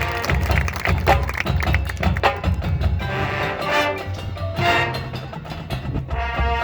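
Marching band playing, with sharp percussion hits throughout and held pitched chords coming in more strongly in the second half.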